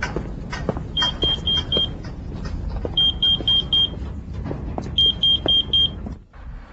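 Electronic beeper sounding four quick, high, even beeps in a group every two seconds, over a steady low rumble with scattered knocks. The sound dips briefly about six seconds in.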